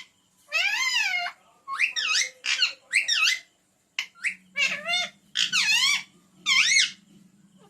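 Pet parrot calling: a run of about seven short, high-pitched calls, each sliding up and down in pitch, in quick groups with brief pauses between.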